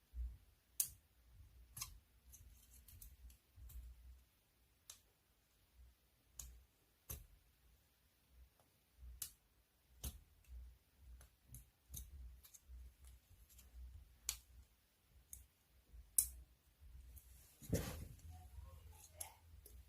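Faint, irregular clicks and taps, roughly one a second, with a louder brief rustling or scraping sound near the end.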